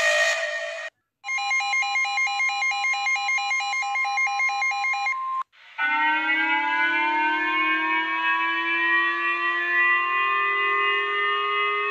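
Emergency alert alarm tones: after the brief end of a loud, hissy tone, fast pulsing electronic beeping runs for about four seconds. After a short break, a siren-like wail of several pitches at once sounds and rises slowly in pitch.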